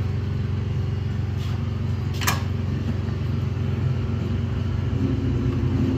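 Steady low mechanical hum of a running machine, with a single sharp click a little over two seconds in.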